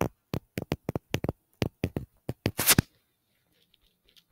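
A stylus tapping on a touchscreen tablet while words are handwritten: a quick, irregular run of sharp taps, ending in a short scrape about three seconds in, after which the tapping stops.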